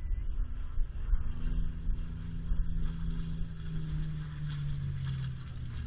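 Propeller-driven piston aircraft engine droning overhead, growing louder as it approaches, then dropping in pitch as it passes, over a low wind rumble on the microphone.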